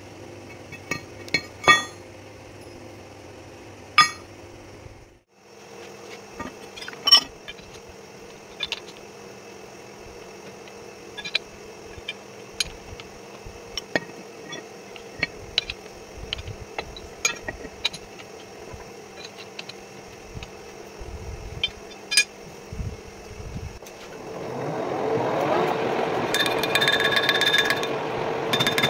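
Clinks and knocks of steel as a welded plate is handled and clamped into a metal lathe's four-jaw chuck. Near the end the lathe spins up and then runs steadily with a whine.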